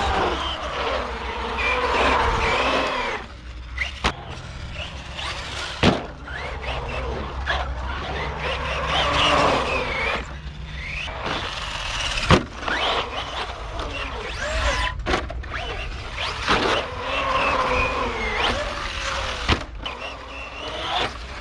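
Brushless electric motor of a Team Associated Rival MT10 RC monster truck whining as it revs up and down in bursts, with several sharp knocks as the truck lands jumps.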